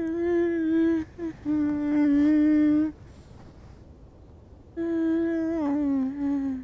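A young woman's voice humming long, held notes in a few short phrases, with pauses between them.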